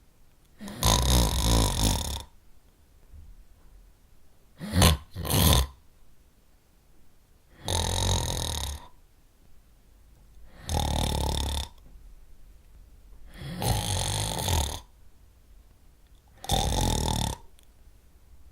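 A person snoring loudly, with one long rasping snore roughly every three seconds. About five seconds in, two short, sharp snores come close together.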